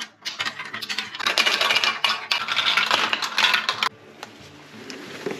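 Small steel balls rattling and clicking down a plastic marble-run track: a dense run of metallic clicks that stops abruptly about four seconds in, with soft background music underneath.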